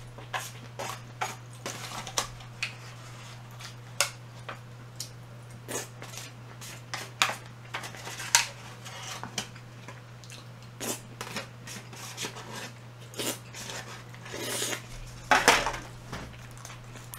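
Cutlery clicking and clinking against dishes in irregular, scattered taps, with a louder burst of clatter about fifteen seconds in.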